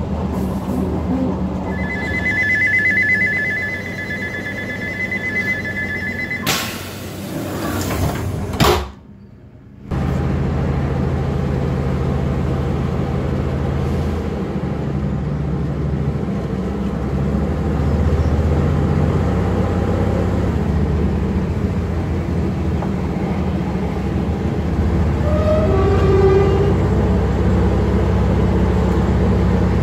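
Inside a diesel multiple unit: a pulsing two-tone electronic beep for about four seconds, typical of a door-closing warning, then a loud rush of noise. After a short gap, the train's diesel engine runs with a steady low drone, with a brief rising whine near the end.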